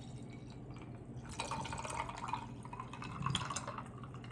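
Coconut water being poured from a can, a dripping, splashing pour that thickens about a second in.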